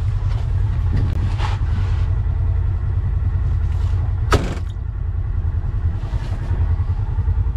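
Polaris side-by-side UTV engine running with a steady low drone as the machine rolls across sand, with a sharp knock about four seconds in.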